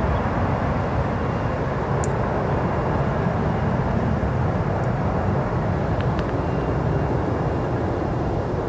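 Boeing KC-46 tanker's twin turbofan jet engines running at climb power as the aircraft climbs away, a steady, even jet noise that holds level throughout.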